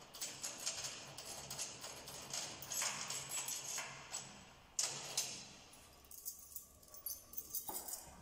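Tension rods being unscrewed from the lugs of a PDP bass drum, giving irregular small metallic clicks and rattles, with a quieter spell shortly before the end.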